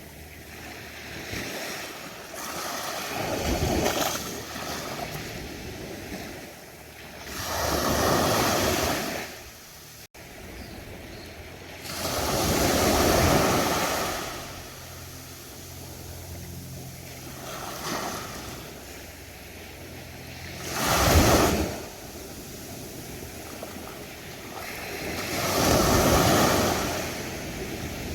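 Ocean waves breaking on a sandy beach, surf surging and washing back in a slow rhythm, about six swells, one every four to five seconds, with a steady hiss of surf between them.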